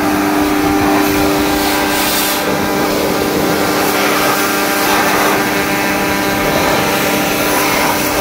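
Pressure washer running steadily, a constant motor hum under the hiss of its water jet spraying onto a motorcycle's wheel and swingarm.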